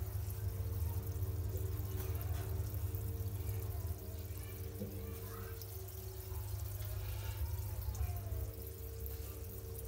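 Water bubbling and churning at the surface of a fish tank, aerated from below, over the steady electric hum of a pump.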